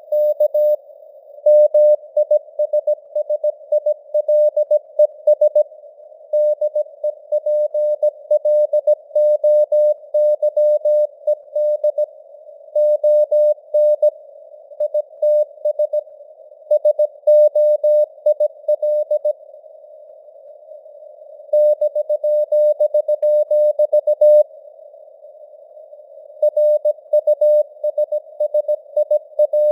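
Morse code at 17 words per minute: a single beep tone keyed in dots and dashes over simulated radio receiver hiss, with longer gaps between words.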